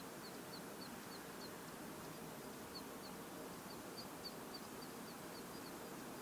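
A small songbird repeating one short, high, slightly falling note about three times a second, breaking off for about a second, then going on, over a faint steady background hiss.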